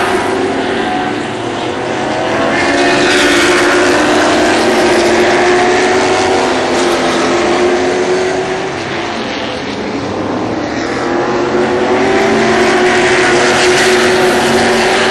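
A pack of Sportsman-class stock cars racing on a short oval track, several engines running together and shifting in pitch. The sound swells twice as the field comes past and fades in between.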